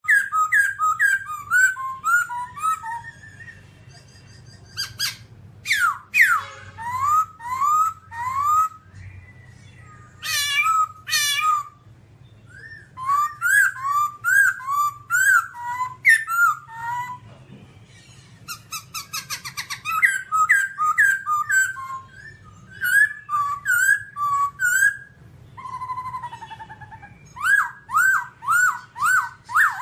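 Black-throated laughingthrush singing: loud, clear whistled phrases of quickly repeated rising-and-falling notes, in bursts of a few seconds with short pauses between them. A faint steady low hum lies underneath.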